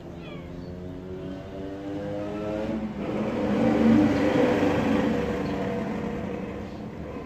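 A motor vehicle's engine passing by, growing louder to a peak about four seconds in, then fading away. A kitten gives a short meow right at the start.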